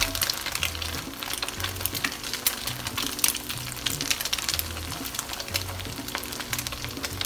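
Scrambled eggs sizzling and crackling in plenty of hot oil in a wok as a silicone spatula stirs them. Background music with a rhythmic low bass line plays underneath.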